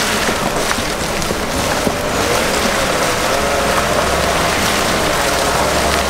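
Pickup truck driving slowly along a leaf-covered woods trail, heard from a camera mounted low on its side: a steady rush of tyre and wind noise with a faint wavering whine.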